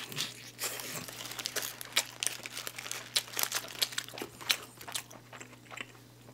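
Paper wrapper crinkling around a McDonald's Snack Wrap as it is bitten into and chewed, with a run of sharp crackles and crunches.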